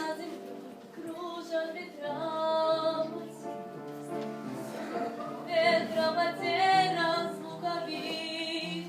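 Music: a woman singing long held notes with vibrato over steady sustained accompaniment.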